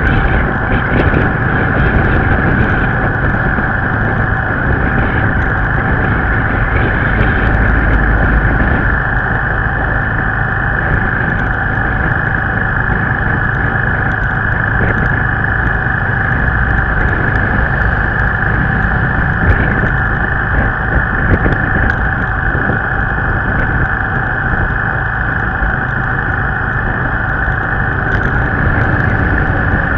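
Steady wind rush and drone of a vehicle riding along a highway, picked up by a camera mounted on it, with a constant high whine over the rumble.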